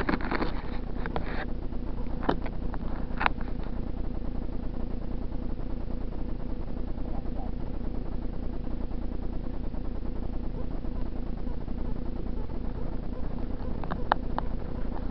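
Camera being handled: a few knocks and rubs in the first few seconds and again near the end, over a steady low rumble with a faint hum.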